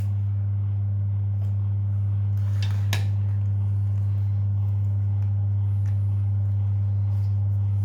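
Steady low hum, with a few faint clicks from a plastic shower head being screwed onto a hose by hand.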